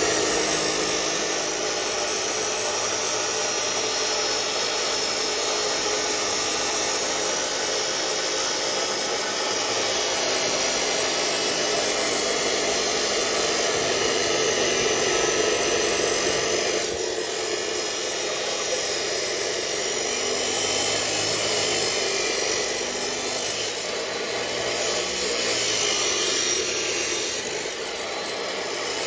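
Harbor Freight Hercules 15-amp cut-off saw, its abrasive wheel grinding steadily through thick steel angle iron under load. The cut runs continuously, easing slightly near the end.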